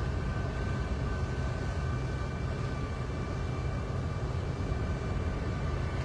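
Steady low rumble of engine and road noise heard from inside a moving car's cabin, with a few faint steady high tones over it.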